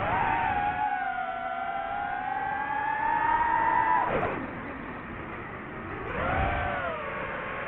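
DJI FPV drone's motors whining, the pitch jumping up at the start and holding high, dropping about four seconds in, then rising again as the throttle changes.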